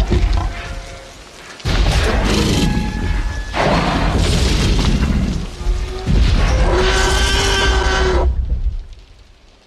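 Film sound effect of a Tyrannosaurus rex: several deep, loud roars in a row, each a second or two long. The last, about six seconds in, holds a clear pitch and dies away over the final second or so.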